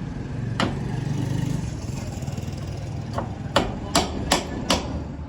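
Knife chopping on a cutting board: one sharp knock about half a second in, then five quick chops at about three a second near the end, over a low steady background rumble.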